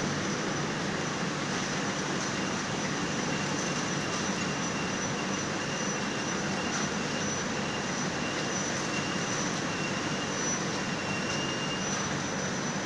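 Yarn-winding machine running steadily, winding yarn unravelled from defective knit fabric onto cones: an even mechanical whirr, with a faint high whine that comes and goes.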